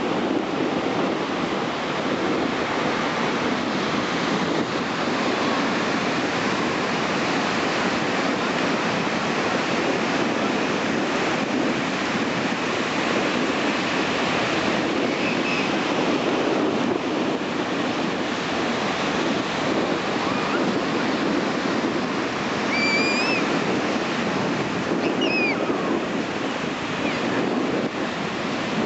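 Ocean surf breaking and washing up the beach, a steady rush of waves. A few brief, wavering high cries sound over it, mostly in the last few seconds.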